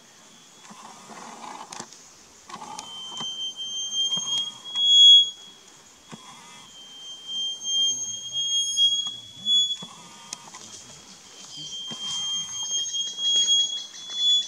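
A songbird singing: long, steady, high whistled notes, each held for a second or two with short gaps between them, mixed with short lower gurgling phrases every second or two. The whistle is loudest about five seconds in.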